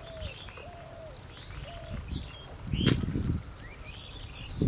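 Outdoor birdsong: scattered high chirps, and in the first couple of seconds a lower, slightly falling call repeated about once a second. About three seconds in, a brief louder noise close by with a sharp click at its start.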